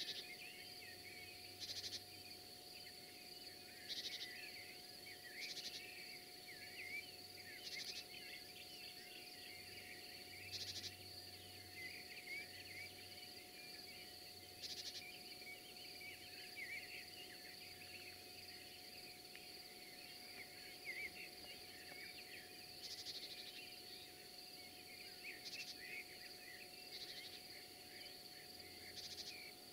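Crickets chirping: a faint, steady high-pitched trill with louder chirps every couple of seconds, over a dense scatter of short, scratchy higher calls.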